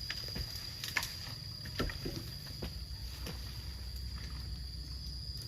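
An insect calling as a single steady high-pitched tone, over a low rumble, with a few light knocks scattered through.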